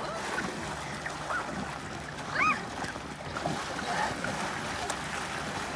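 Lake water splashing and sloshing as people scramble onto a floating foam mat, over a steady low hum. Short high cries ring out a few times; the loudest comes about two and a half seconds in.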